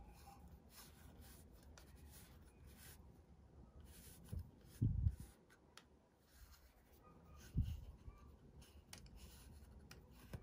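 Faint rubbing and light clicks of a cotton-gloved hand and fingers turning a metal large-format lens on its lens board. There are soft low bumps about five and seven and a half seconds in.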